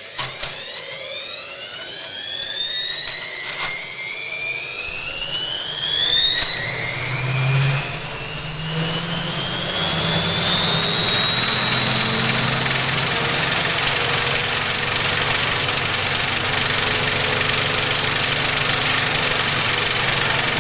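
Washing machine motor and drum spinning up to high speed: a whine that climbs steadily for about ten seconds, then holds at full speed over a loud rushing noise. A few knocks in the first several seconds.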